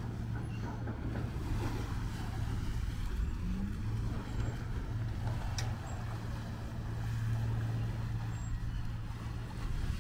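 Small passenger ferry's engine running with a steady low hum.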